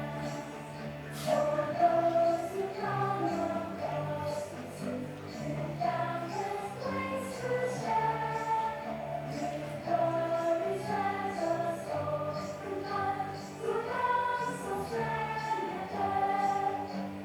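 Music with a choir singing a melody over accompaniment.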